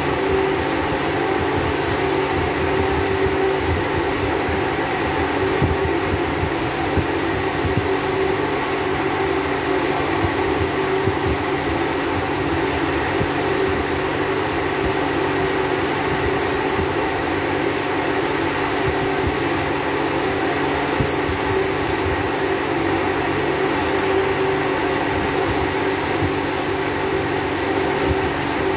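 Air spray gun hissing as clear PU varnish is sprayed onto wood, over the steady hum of the motor driving the air supply. The spray hiss cuts out briefly twice while the motor hum runs on.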